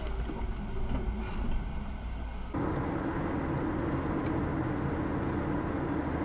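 Car interior road and engine noise recorded by a dashcam while driving. About two and a half seconds in it switches abruptly to a louder, steady highway drone with a low hum.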